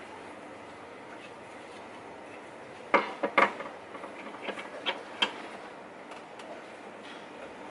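A quick run of sharp knocks and clicks, about half a dozen over two seconds starting about three seconds in, the first few the loudest, over a steady background hiss.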